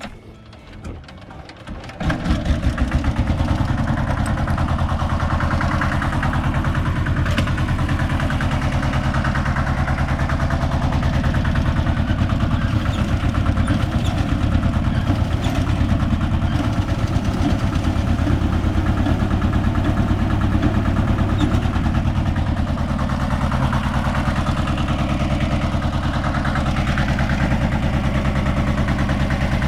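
Konma MT-S411D harvester (stationary thresher) starting up about two seconds in, then running steadily on a test run to check for the abnormal noise reported from its chain drive.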